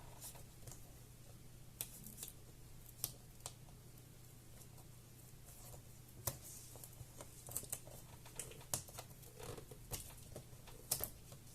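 Faint, scattered clicks and light taps of laptop display parts being handled during disassembly, over a low steady hum.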